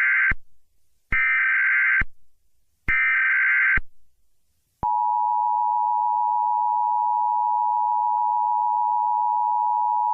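Emergency Alert System header: the tail of one burst of warbling data tones, then two more bursts of about a second each with short gaps between them. About five seconds in, the steady two-tone EAS attention signal begins and holds.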